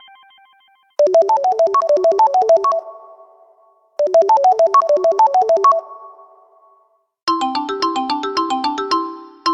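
Stock Samsung Galaxy S5 phone tones. A quick run of bright synthesized notes plays, rings out, and plays again the same way after a short pause, as the tone loops. Near the end a different tone begins: an even, repeating pattern of notes with a lower part under it.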